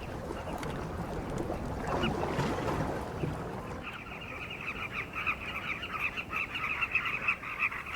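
A nesting colony of carmine bee-eaters calling all at once: a dense chatter of many short, throaty calls overlapping, which becomes a steadier, faster run of calls about halfway through.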